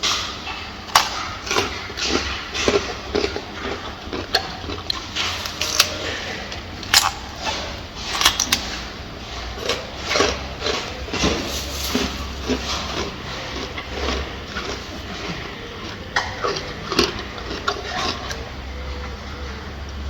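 Gorilla eating: irregular crunches and snaps of food being bitten and chewed, over a low steady rumble.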